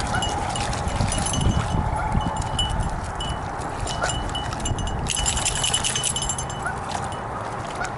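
Light metallic jingling and clinking, like dog tags on collars, as the dogs move, with the densest stretch about five seconds in. A steady low rumble runs underneath.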